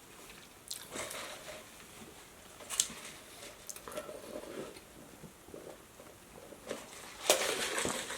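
A person chewing and biting food close to the microphone: scattered wet mouth clicks and crackles, with a louder burst about seven seconds in.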